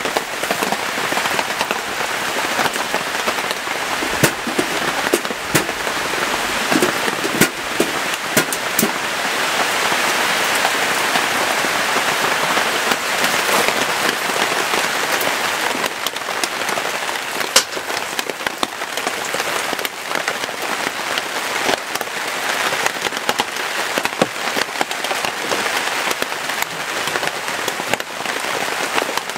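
Heavy rain falling: a steady hiss with many sharp individual drops striking a hard surface. It grows a little heavier in the middle.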